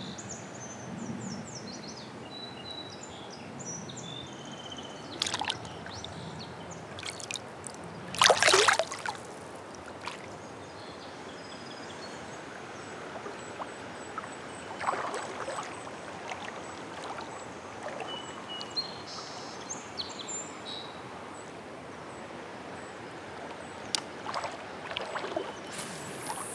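Shallow river water flowing steadily over a rocky riffle, with water sloshing around a wading angler and one loud splash about eight seconds in. A few faint high chirps sound over the flow.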